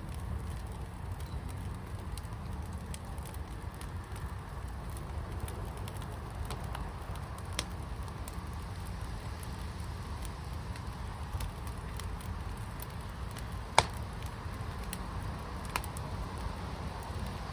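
Fire pit burning: a steady low rumble with scattered crackles and pops. The loudest pop comes about 14 seconds in.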